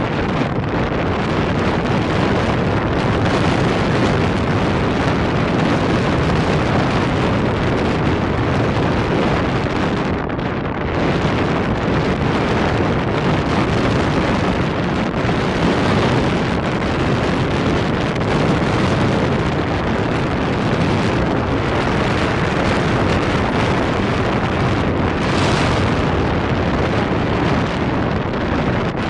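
Strong wind blowing across the microphone: a loud, steady rumbling noise that covers everything else.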